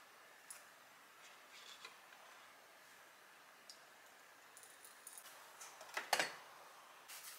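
Quiet kitchen handling sounds from pour-over coffee equipment: a few light clicks and taps, then a louder short metallic clink about six seconds in, followed by a couple more clicks.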